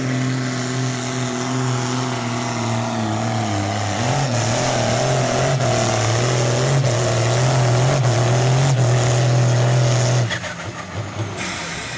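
Ford TW-10 tractor's diesel engine running flat out under heavy load while pulling the sled, a steady loud drone with black smoke at the stack. About ten seconds in the engine note drops away suddenly as the throttle comes off.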